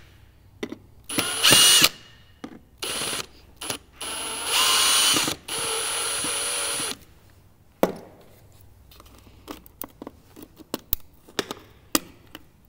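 Ryobi cordless drill/driver backing screws out of a plastic battery case in several short bursts of motor whine over the first seven seconds. A sharp click near eight seconds is followed by light clicks and taps as parts are handled.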